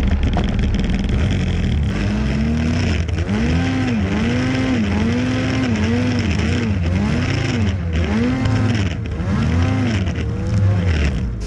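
Snowmobile engine revving up and down over and over while ploughing through deep powder snow: a rising and falling engine note repeating roughly every second, over a steady low rumble.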